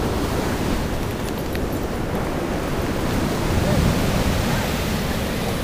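Ocean surf washing up on the beach: a steady rushing noise.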